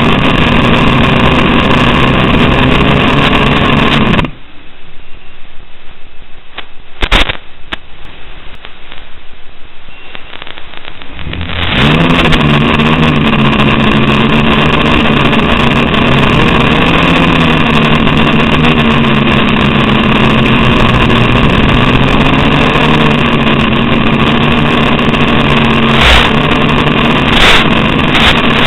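Small FPV quadcopter's brushless motors and propellers whining loudly, the pitch wavering with throttle. The sound drops away from about four seconds in, then comes back to full level about eleven seconds in.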